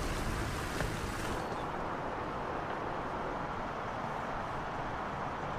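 Steady rushing noise of a sailboat under way, wind and water with the low running of the boat, turning duller about a second and a half in.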